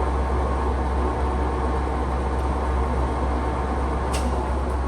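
National hollow-spindle lathe running under power, its spindle and gear train turning with the cross feed engaged: a steady mechanical hum. One short click about four seconds in.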